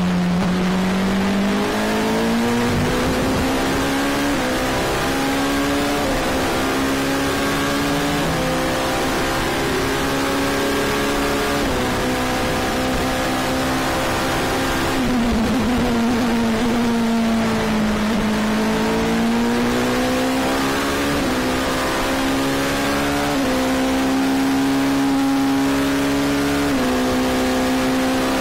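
Oreca LMP2 prototype's Gibson V8 engine heard from the cockpit at racing speed, its pitch stepping at each gear change, with a slower fall and climb about halfway through.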